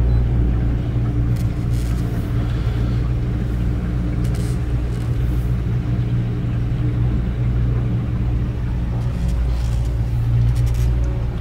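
Motorboat engine running steadily under way, a continuous low drone.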